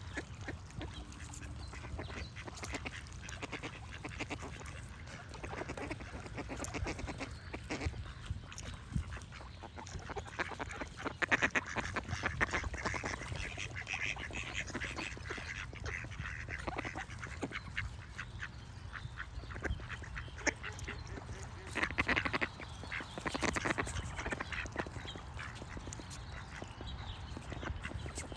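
Ducks quacking in short, repeated runs, with louder clusters of calls about eleven seconds in and again about twenty-two seconds in. Other birds sing faintly underneath, over a low steady rumble.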